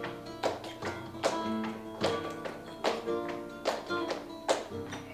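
Flamenco guitar strumming and picking, with sharp percussive strikes a little under once a second from the dancer's heel-and-toe footwork and hand-clapping (palmas).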